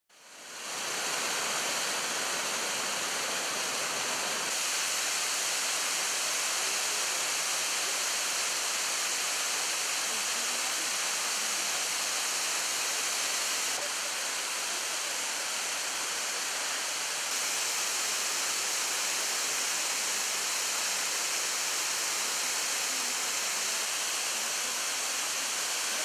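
A waterfall of about 24 metres pours onto boulders as a steady, even rush of falling water, hissy and strongest in the high range. It fades in over the first second, and its level shifts slightly a few times.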